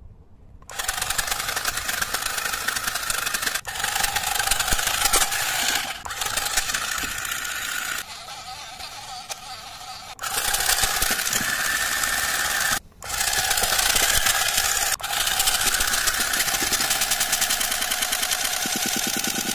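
Small motor and plastic gears of a toy walking monkey running fast on 10 to 12 volts, far above its normal battery voltage, a loud rattling whir with the legs clattering. It stops and restarts abruptly several times.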